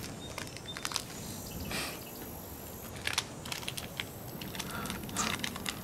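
Crinkling of a foil wrapper handled at close range: scattered small crackles and clicks with a few brief rustles.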